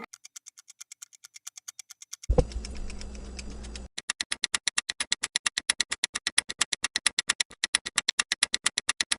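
Countdown-timer sound effect: a fast, even clock-like ticking, about six ticks a second, faint at first and much louder from about four seconds in. A thud and a deep synthesized drone come in a little over two seconds in under the ticks and stop about a second and a half later.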